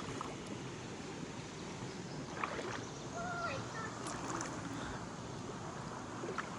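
Steady rush of flowing creek water, with a faint click about two and a half seconds in and a brief faint distant call just after three seconds.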